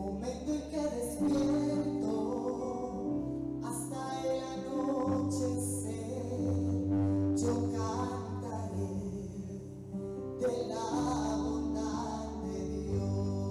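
Live church worship band playing slow music, long held keyboard-like chords that change every second or two, with a voice singing over it at times.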